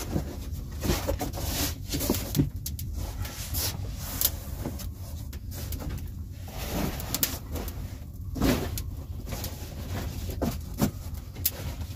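Wood fire crackling in a stone fireplace with irregular sharp pops, over a steady low rumble, mixed with the rustle and scrape of a foam sleeping mat being spread over rocks.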